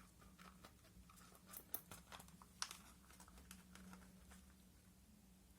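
Faint, scattered light clicks and taps of small objects being handled, the sharpest about two seconds in and near the middle, over a low steady hum.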